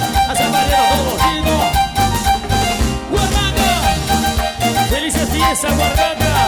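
Live cumbia band music: an instrumental passage with a steady percussion beat under a wavering melody line, with no words sung.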